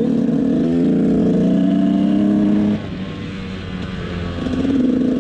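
KTM 125 SX two-stroke single-cylinder dirt bike engine running steadily on the throttle. About three seconds in the throttle closes and the engine drops back, then it picks up again near the end.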